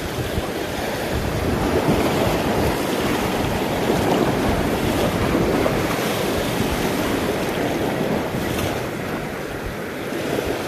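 Sea surf breaking and washing against rocky shore, a steady rushing that swells a second or two in and eases near the end, with wind buffeting the microphone.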